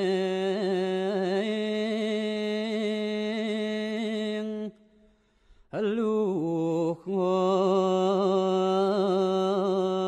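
Background music of vocal chanting in mantra style: a long held low note with a wavering melody above it. It cuts out for about a second midway, then comes back with a quick rising swoop.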